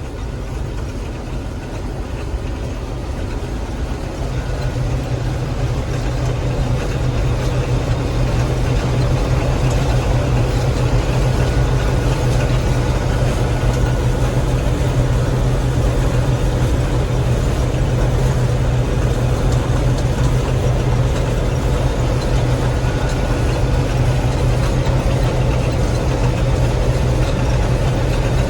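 Gleaner M3 combine running while harvesting wheat: a steady engine and machinery drone that grows louder over the first several seconds, then holds even.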